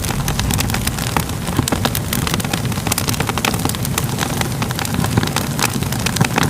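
Crackling fire: many quick, irregular pops and crackles over a steady low rumble.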